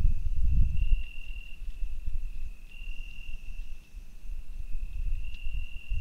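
A cricket trilling in short phrases of a single high note, a new phrase every couple of seconds. Under it runs an irregular low rumble and crackle, loudest at the start.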